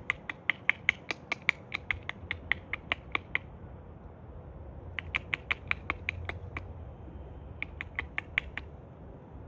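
Rapid, regular clicking, about six sharp clicks a second, in three runs with short pauses between, over faint outdoor background noise.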